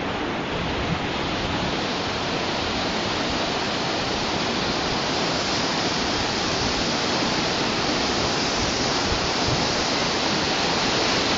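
Whitewater river rapids rushing steadily below a footbridge, a continuous wash of water noise that grows slightly louder near the end.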